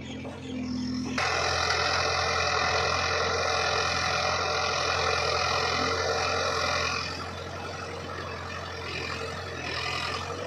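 Backhoe loader and tractor diesel engines running close by: a steady engine hum under a loud, dense, high-pitched whine and hiss, which eases off about seven seconds in.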